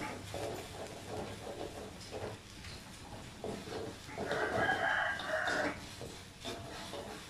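Okra stir-frying in a wok with a soft sizzle, while a metal spatula scrapes and turns it. About four seconds in, a rooster crows once for about a second and a half; the crow is the loudest sound.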